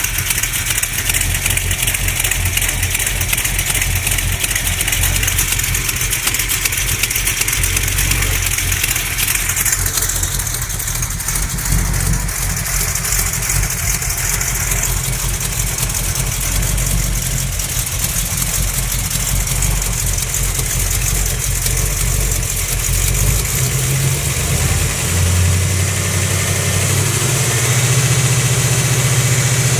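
Small-block Mopar 360 V8 running, with a knock that the owner has not traced and says is not an exhaust leak, even after new lifters and new main, cam and rod bearings. The engine speed rises a little about two-thirds of the way through.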